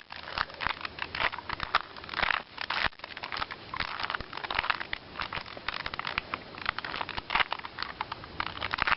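2x2x2 Rubik's cube being turned quickly by hand, its plastic layers clicking and rattling in fast, irregular runs.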